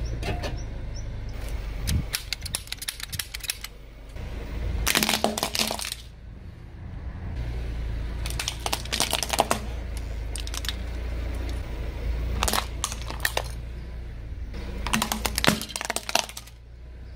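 Car tyre rolling over plastic toys on brick paving, crushing them with several spells of cracking and crackling plastic over the low rumble of the car.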